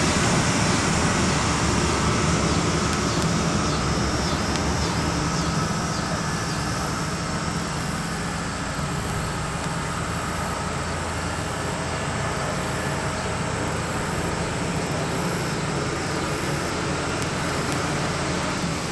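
Ferryboat's engine running steadily, heard from the open deck over churning water. It eases off a little in the first several seconds, then holds level.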